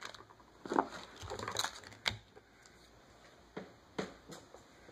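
Scattered light taps and rustles of flat grey ribbon cable being handled and laid down on a wooden tabletop, the loudest tap just under a second in.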